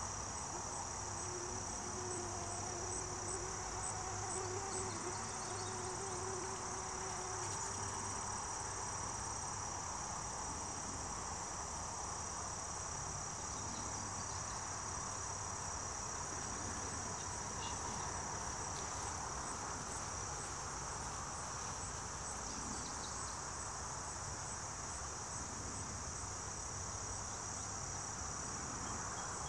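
Steady, high-pitched chorus of insects trilling continuously in the background.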